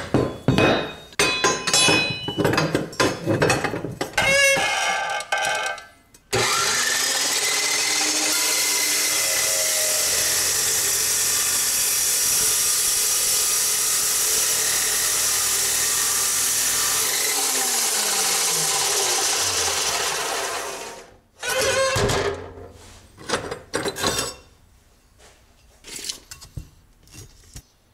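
A 14-inch dry-cut chop saw cuts through rectangular steel tube. First there are a few seconds of metal clanking as the tube is set in the saw's vise. Then the saw starts abruptly and cuts with a steady loud noise for about fourteen seconds, its motor pitch falling as it winds down, followed by clanks of the cut steel being handled.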